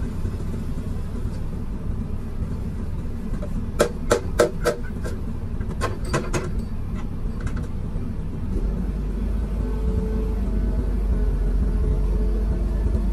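Komatsu PC210 excavator's diesel engine running, heard from inside the cab. A quick run of sharp clicks comes about four seconds in and another about six seconds in. From about two-thirds of the way through, the low rumble grows stronger and a steady hum joins as the boom lifts a loaded concrete skip.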